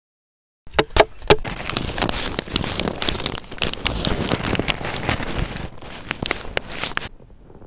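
Dense crackling noise full of sharp clicks and snaps. It opens with a few separate sharp snaps, builds into continuous crackle, and cuts off abruptly.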